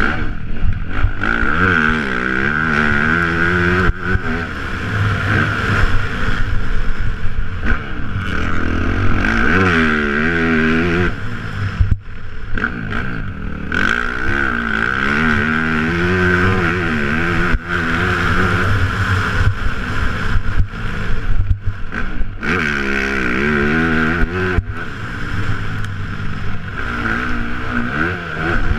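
Motocross bike engine revving hard and easing off again and again as the rider accelerates, shifts and brakes around a dirt track, heard from on board the bike.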